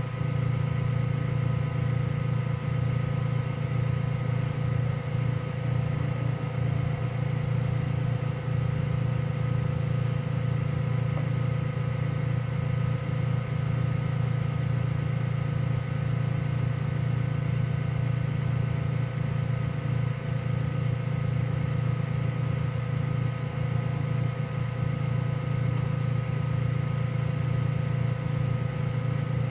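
Diode laser cutter running a slow cutting pass: a steady low hum from its cooling fans and stepper-driven gantry, with several faint steady whining tones above it.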